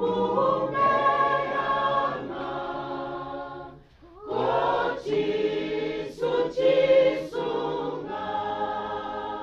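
A congregation of many voices singing a hymn together, in long held notes, with a short break about four seconds in before the singing starts again.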